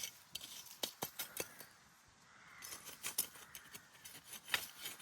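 Soil being brushed and scraped by hand over freshly sown radish seeds: an irregular run of crisp scrapes and small clicks of soil and grit.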